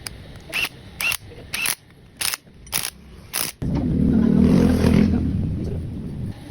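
Six sharp metallic knocks, about two a second, several with a short ring. Then a vehicle engine comes in loudly and slowly fades.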